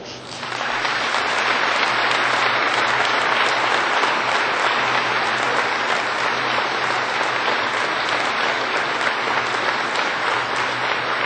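Large audience applauding, swelling over the first second into steady, sustained clapping.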